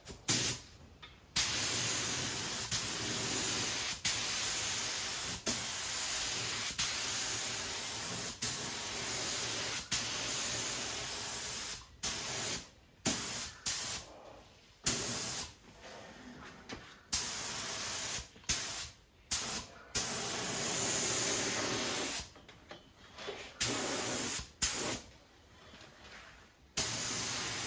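Paint spray gun hissing as it lays down a final coat of clear coat. It sprays in long passes of several seconds, broken by gaps and short bursts where the trigger is released and pulled again.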